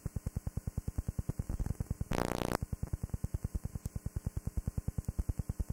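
Videotape playback noise: a rapid, evenly spaced pulsing buzz, with a half-second burst of hiss about two seconds in.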